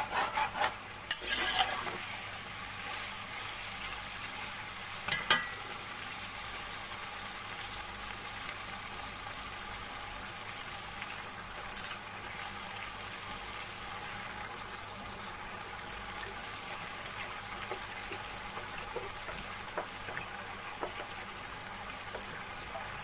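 Vegetables and ground green chillies frying in oil in a steel pot: a steady sizzle. A metal utensil stirs and scrapes the pot for the first two seconds, and there is a single clink about five seconds in.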